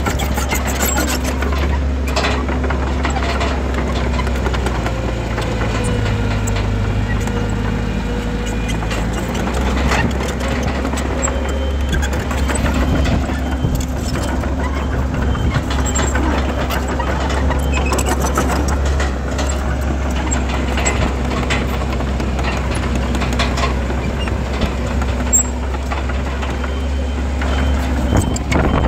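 Diesel engine of heavy earthmoving machinery running steadily with a deep drone, its note changing for a few seconds about a third of the way in, with scattered short knocks and clanks.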